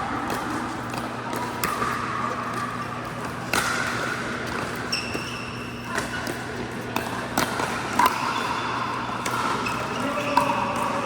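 Pickleball being played on an indoor court: irregular sharp pops of paddles striking the plastic ball and the ball bouncing, about one every second or so, with background voices.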